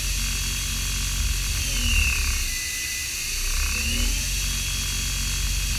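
Haas ST20SSY CNC lathe turning stainless steel bar stock under flood coolant: a steady hiss of coolant spray over a low rhythmic rumble. A machine whine climbs in pitch, holds, then falls away, repeating about every four seconds.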